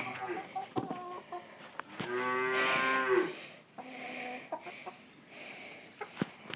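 A cow mooing: one long, slightly falling call of just over a second, about two seconds in, with shorter, fainter calls around it.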